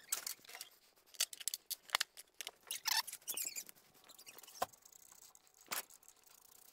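Irregular light clicks, taps and short scrapes of hands working on the top of the engine's fuel injection unit, checking the injector harness connectors for one that has pulled loose.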